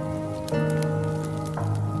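Soft background music of held notes, changing chord about half a second in and again near the end, over faint crackling of a wood fire burning in a stove.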